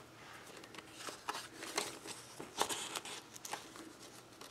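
Card-stock pages of a ring-bound handmade journal being turned by hand: faint rustling and sliding of paper with a few soft clicks.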